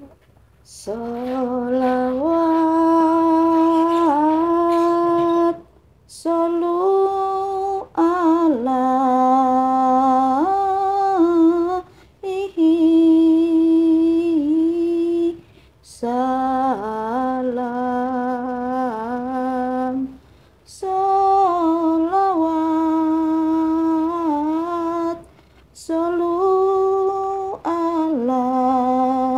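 A voice humming a slow melody in long held notes, about seven phrases with short breath pauses between them.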